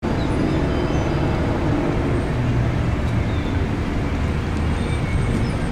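Steady road traffic rumble, with a few faint high chirps now and then.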